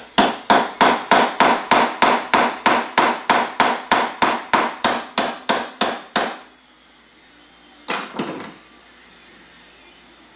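Small hammer tapping at the float pivot pin of a 33mm Mikuni carburetor to drive it out: about twenty quick, sharp metal taps at roughly three a second. The taps stop about six seconds in, and a short clatter follows about two seconds later.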